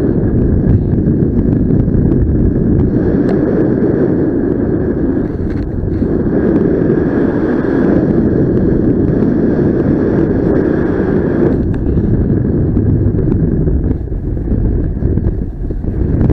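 Airflow buffeting the microphone in flight under a paraglider: a loud, continuous low rumble that swells and eases, with a faint steady high tone running beneath it.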